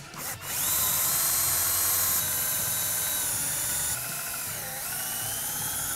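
DeWalt cordless drill running steadily as it bores a small pilot hole into a wooden header board. The whine starts about half a second in, sags briefly in pitch under load about four and a half seconds in, then picks back up and stops near the end.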